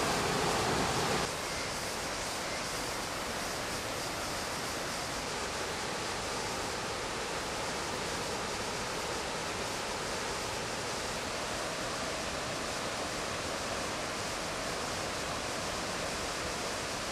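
White-water river rushing through a narrow rock gorge: a steady, even rush of water. It is louder and fuller for about the first second, then settles to a slightly quieter steady rush.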